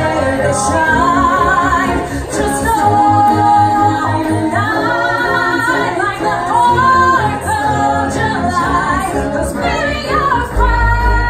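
Women singing a pop song into microphones over a backing track with a pulsing bass line. A heavier bass comes in near the end.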